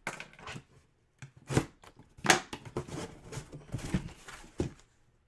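Trading card box packaging being torn and crinkled open, with cards handled. It is an uneven run of sharp rustles and snaps that stops abruptly near the end.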